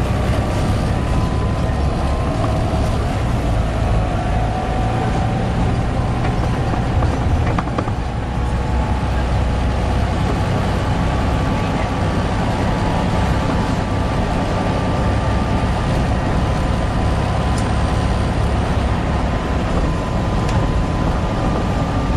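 Volvo B7TL bus's seven-litre straight-six diesel running with a steady low drone, overlaid by a high whine that wavers slightly in pitch: the strange whining, wailing noise the bus is known for.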